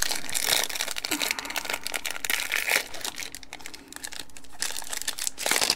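Foil wrapper of a Topps baseball card pack being torn open and crinkled by hand: a continuous crackling rustle, loudest near the start and again just before the end.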